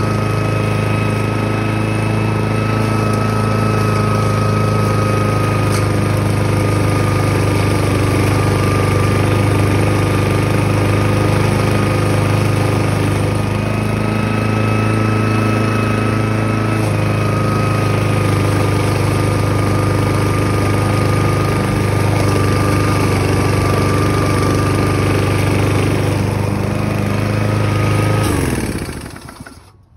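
Craftsman walk-behind mower's 159cc engine running steadily while the mower is pushed across the lawn, then shut off near the end, its pitch falling as it spins down.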